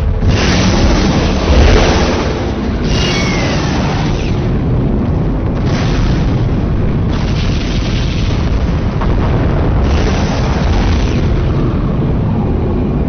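Loud cinematic booms and rushing whooshes: a heavy low rumble under noisy swells that start abruptly every few seconds.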